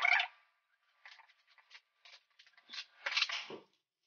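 Corrugated cardboard box being cut and torn open by hand: a series of short scratchy rasps and rips, a sharp one at the start and a longer tearing stretch near the end.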